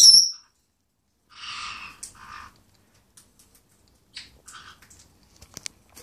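Parrot calls: a loud, short, high-pitched squeak at the start, then two harsher squawks about a second and a half in, with fainter chirps and a few clicks near the end.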